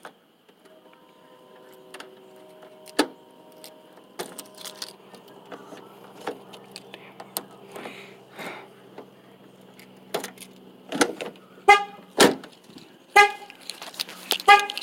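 Car alarm going off: the vehicle's horn honking in short, loud blasts about once a second, starting about eleven seconds in, after a stretch of faint clicks.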